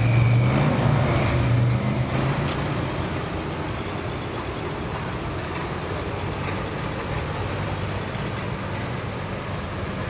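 A Ford hot farm pulling tractor's engine running loud and steady. About two seconds in it drops away to a lower, steady rumble of tractor engines idling at the pulling track.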